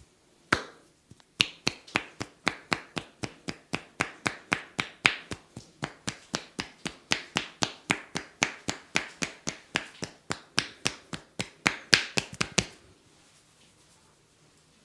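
A masseur's hands strike in a fast, even rhythm, the clapping, slapping percussion of a massage, at about four to five strokes a second. A single stroke comes first, then a steady run of some eleven seconds that stops abruptly.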